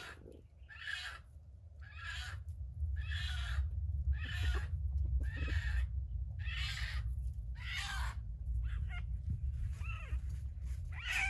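A junglefowl (wild chicken) giving a run of about ten short harsh calls, roughly one a second, over a steady low rumble.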